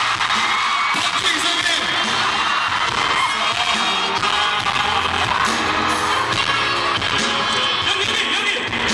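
Live pop concert sound from the audience, with music and voices over the PA. It is loud and distorted, the recording breaking up.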